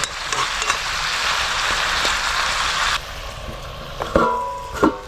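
Food sizzling in a frying pan as a steady hiss that cuts off suddenly about three seconds in, followed by a couple of short metallic clinks.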